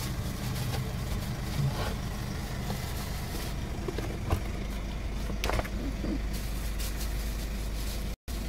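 Car engine idling, heard from inside the cabin as a steady low hum. A few knocks and rustles as things are moved about in the car, the sharpest knock about four seconds in.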